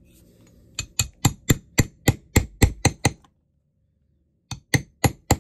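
Hammer striking a steel rivet-setting punch to set a handle rivet cap through leather: a run of about ten quick, ringing metal taps, roughly four a second, then a pause of over a second and a few more taps near the end.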